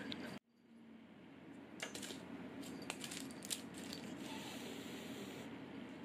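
A Minuet cat hissing at a kitten: one soft breathy hiss about two-thirds of the way in, after a few light clicks and taps.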